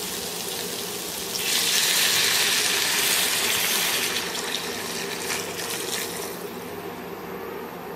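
Water poured in a stream into a kadai of fried vegetables and spice masala, splashing into the pan. The pour starts about a second and a half in, is loudest for the next two or three seconds, then eases off and stops about six seconds in.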